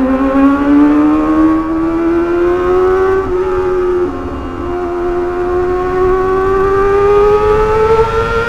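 Kawasaki ZX-25R's 249 cc inline-four engine pulling hard through the gears, its high wail rising steadily in pitch. The pitch drops back at gear changes around three and four seconds in, then climbs again. Wind noise sits underneath.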